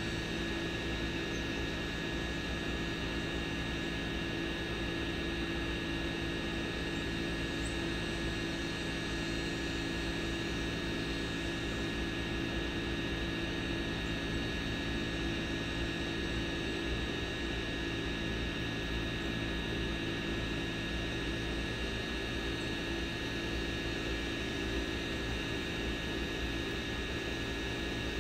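Steady whine and rushing hum of aircraft propellers and motors: several unchanging tones over a low rumble, level and even throughout.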